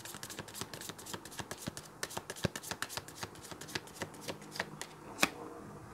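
A tarot deck being shuffled by hand: the cards flick against each other in quick, irregular clicks, with one louder snap about five seconds in.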